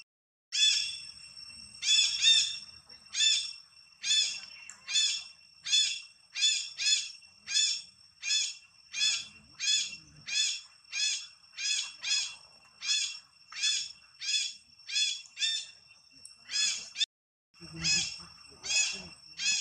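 A high-pitched animal call repeated about twice a second, over a steady high-pitched drone.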